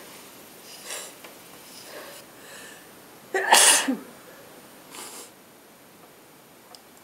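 A person sneezing once, loudly, about three and a half seconds in, with a few fainter breaths before it and a smaller burst about a second after.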